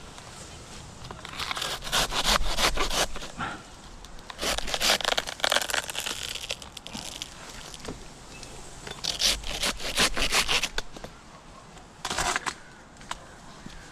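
Dry queen-palm fronds crackling and tearing in four bursts of a few seconds each as they are cut away, with no engine running.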